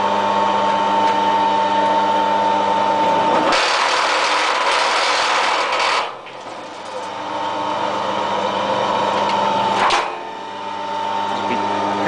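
Electric wire stripping machine running with a steady motor hum. A few seconds in, a noisier rush takes over for a couple of seconds as thick aluminium cable is fed through the blades. The sound then dips and builds again, there is a sharp click, and the steady hum returns.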